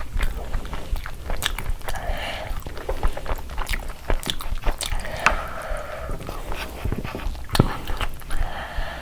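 Close-miked chewing and biting of food, with many sharp crunchy crackles and a few short mouth noises between them.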